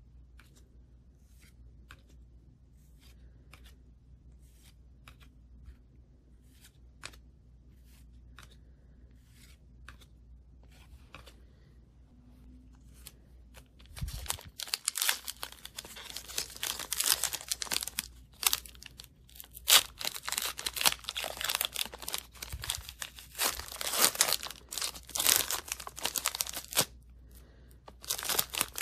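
Trading cards handled with faint, separate clicks, then from about halfway a foil hockey-card pack is torn open and its wrapper crinkles loudly as it is peeled off the cards.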